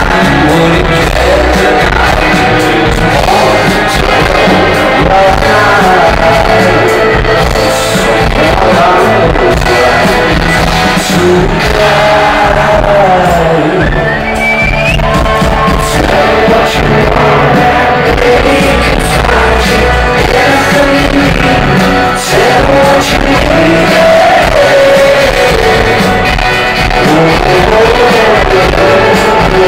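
Live rock band playing: electric guitars and drums, with a man singing lead vocals, loud throughout.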